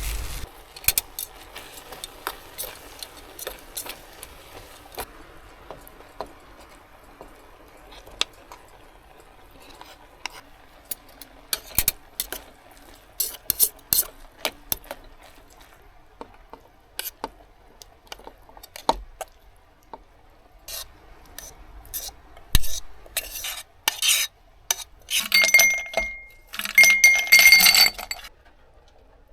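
Irregular clicks and clinks of small hard objects being handled, coming thicker near the end with a few scraping bursts and a brief ringing tone.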